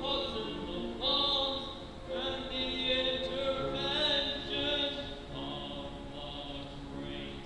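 Group of voices singing a stage-musical number, the pitch moving from note to note.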